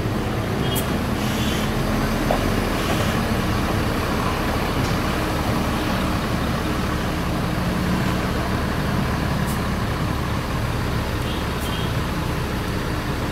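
Large coach's diesel engine running with a steady low rumble. Its pitch drifts slightly, and there are a few faint short clicks.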